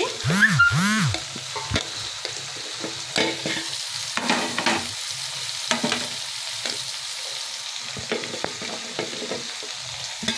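Chopped raw vegetables tipped from a plate into an aluminium cooking pot, the pieces knocking and clattering against the metal, over a steady hiss. Two short squeaks come near the start.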